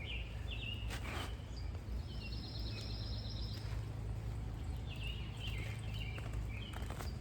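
Birds chirping in the background, with one rapid high trill lasting about two seconds, over a steady low rumble. A few brief rustles come about a second in and near the end, from soil being dug through by hand.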